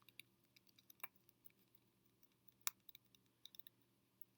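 Faint, scattered small clicks of fingerboard parts being handled while fitting wheels, with the sharpest click about two and a half seconds in, over near silence.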